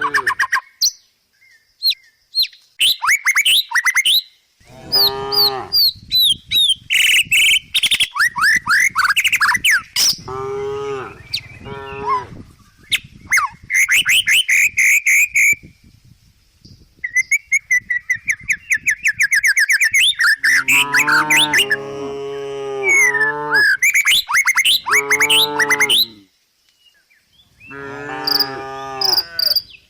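Village cows mooing again and again, with birds chirping in the gaps between the calls.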